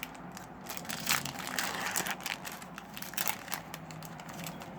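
Foil booster pack wrapper crinkling as it is torn open and handled, with irregular crackles throughout.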